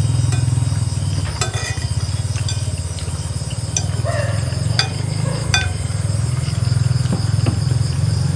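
A small engine idling steadily with a low, fast throb, and a few light clinks of spoons against plates and bowls.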